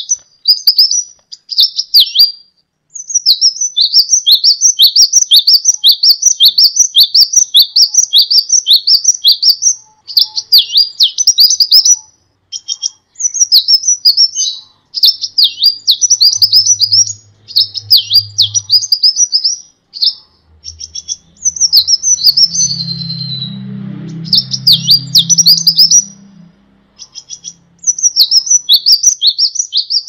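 Van Hasselt's sunbird (kolibri wulung) singing a high-pitched, fast twittering song of rapid repeated sharp notes, in runs broken by short pauses. A faint low hum sits under the song in the middle.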